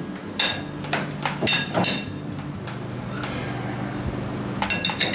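Sharp metallic taps on a steel part, each ringing briefly: several in the first two seconds, then a quick cluster near the end, over a steady low hum. The part is a wobbling steel workpiece being tapped to seat it.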